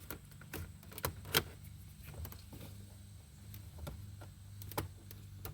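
Scattered light plastic clicks and knocks of a flat pry tool working at a snap-in side trim panel on a Lexus IS250 console, with one sharper click about a second and a half in, over a faint steady low hum.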